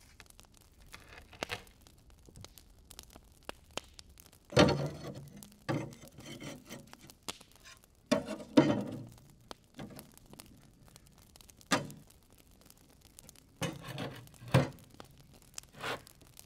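Sheet-metal wood stove and stovepipe being handled and fitted together: a series of metal knocks and clanks with scraping in between, about eight in all, the loudest near the middle.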